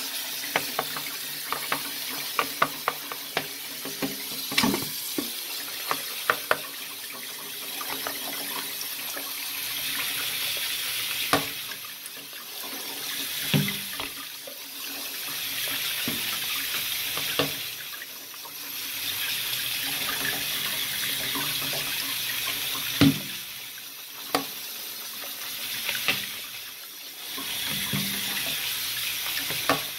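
Kitchen tap running onto cut green beans in a plastic colander in a stainless steel sink: steady splashing water that swells and dips. Scattered sharp knocks and taps come through it, many in the first several seconds and a few single ones later.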